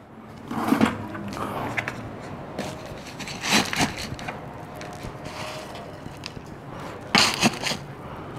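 A plastic bucket of loose bonsai substrate being picked up and handled: three short rustling scrapes of plastic and gritty soil mix, about a second in, around three and a half seconds in, and just after seven seconds.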